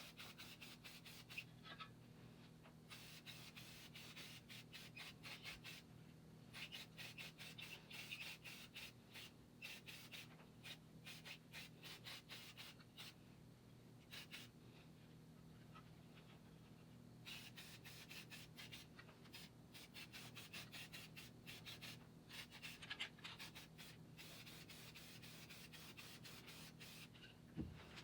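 Fast back-and-forth rubbing strokes, as in hand sanding or scrubbing, coming in several long runs with pauses of a few seconds between them, over a faint steady hum.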